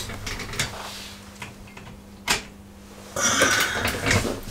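Metal hand tools being handled on a workbench: a few sharp clicks, one loud one about halfway, then a spell of quick clicking and clattering near the end.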